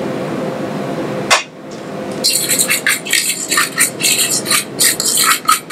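A fork scraping and clinking against a stainless steel mixing bowl as pie-crust dough is stirred, about three to four quick strokes a second from about two seconds in. Before that comes a steady rushing noise, ended by a single knock.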